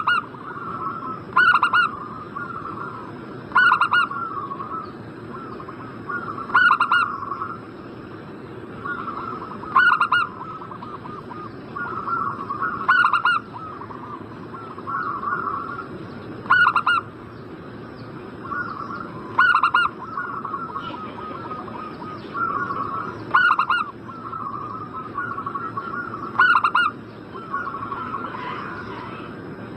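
Zebra dove (perkutut) song: a loud call repeated about every three seconds, with softer rolling cooing between the calls.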